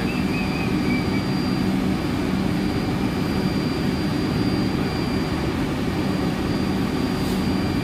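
Steady whooshing drone of equipment cooling fans with a low hum and a thin high-pitched whine, running evenly without change.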